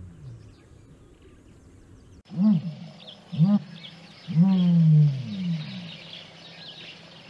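Ostrich calling: two short, low hooting calls about a second apart, then a longer low call that falls in pitch. The calls begin after about two seconds of quiet background.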